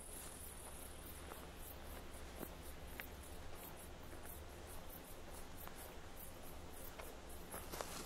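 Insects chirping at dusk: a thin, very high pulsing, about three to four pulses a second, with a few faint clicks.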